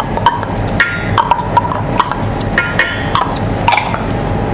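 Metal spoon clinking and scraping against small stainless steel bowls and a saucepan while vegetables are spooned in: a string of short, ringing clinks over a steady low hum.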